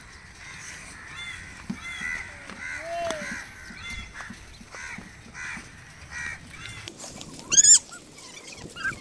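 Birds cawing over and over in short calls, with one louder, sharp, high cry about three quarters of the way through.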